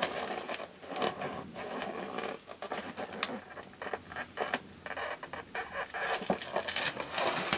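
A balloon pressed and worked by hand onto wet acrylic pouring paint on a canvas: soft, irregular crackling and scraping of the balloon against the paint and the fingers, with a sharp tick about three seconds in.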